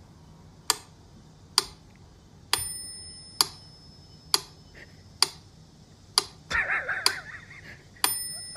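Mechanical metronome ticking steadily, a sharp click about once a second, with a bell ringing on two of the beats. About two-thirds through, a cat gives one short meow.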